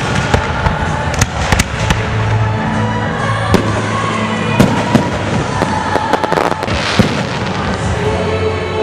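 Fireworks display: many sharp bangs and crackles from bursting shells in quick, irregular succession, over music with held notes.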